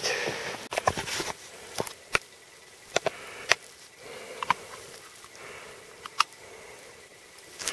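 Scattered sharp taps and clicks, about eight of them at uneven spacing, some with a brief ring, over a low hiss.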